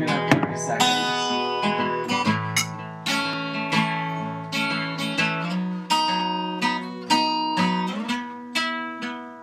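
Acoustic guitar strumming chords in a steady rhythm, with no singing.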